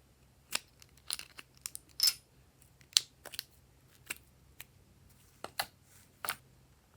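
Glossy slime being squished and stretched by hand, giving a series of sharp, irregular clicks and pops.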